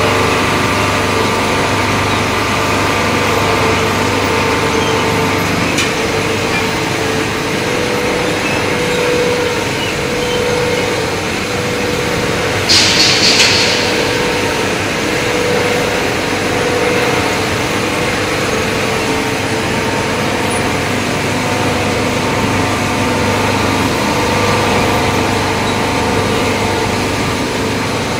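Aluminium chip recycling plant machinery running: a steady mechanical drone with a constant hum. Partway through there is one short hiss of about a second.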